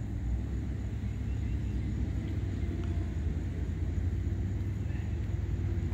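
Steady low outdoor rumble with a faint click partway through, the putter striking the golf ball.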